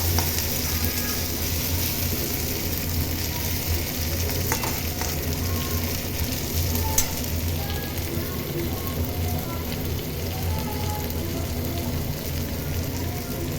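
Chopped onions sizzling as they fry in oil in a kadai, browning, with a few light scrapes and clicks of the spatula stirring them. A steady low hum from the kitchen chimney's extractor fan runs underneath.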